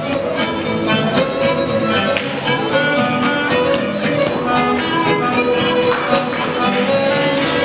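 Fiddle music with a quick, steady beat.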